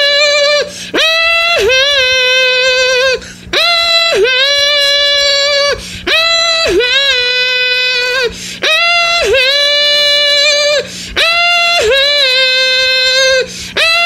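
A woman humming an a cappella "um-hum" melody: the same short phrase over and over, a brief higher note that dips and settles into a long held lower note, about every two and a half seconds, with short pauses between.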